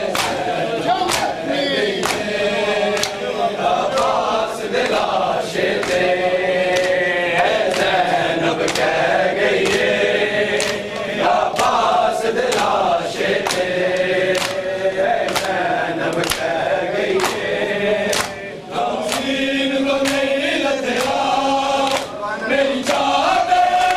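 Group of men chanting a noha together, with a steady rhythm of sharp hand slaps on their chests, a little over one a second: Shia matam (chest-beating) in Muharram mourning.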